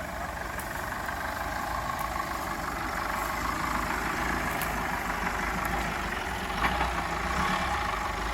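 A 4x4's engine running steadily at low revs, with a few light clicks and knocks over it.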